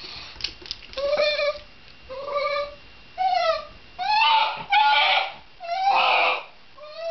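Shiba Inu giving a run of about seven high whining cries, roughly one a second, each bending up and down in pitch. A few light clicks come just before the first cry.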